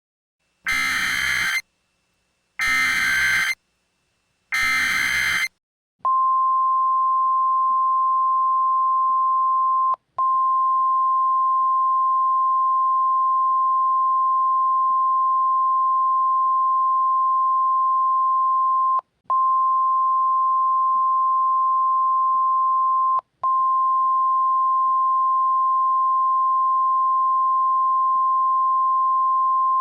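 Simulated Emergency Alert System / NOAA Weather Radio alert: three one-second bursts of the SAME digital header data, then the NOAA 1050 Hz warning alarm tone, one steady single-pitch tone with three very brief dropouts.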